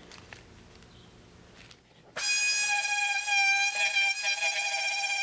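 Small handheld rotary tool switched on about two seconds in, then running with a steady high whine while grinding off a tab on the old headlight mounting ring. Its pitch dips slightly now and then as it bites. Before it starts there is only faint handling.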